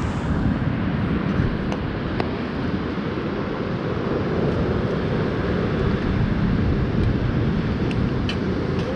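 Steady wind rumbling on the microphone, with a few faint clicks scattered through.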